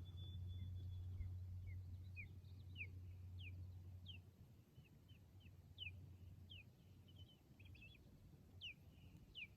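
A bird calling faintly: a run of short, downward-sliding chirps, about one or two a second. A low hum sits underneath for the first few seconds, then drops away.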